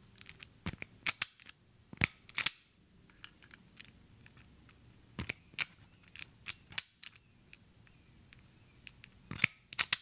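Harbor Freight hand wire strippers clicking and snapping as they grip and strip insulation from short pieces of 12-gauge solid-core wire, in irregular clusters of sharp snaps with pauses between.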